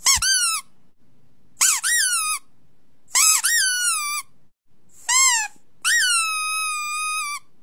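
Five high-pitched squeaks in a row, each rising sharply and then falling in pitch; the last one is drawn out and held for over a second.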